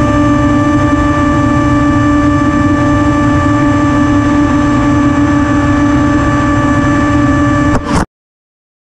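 Electric motors and propellers of an FPV drone in flight: a steady, even-pitched whine over a low rumble of wind and prop wash. It cuts off suddenly about eight seconds in.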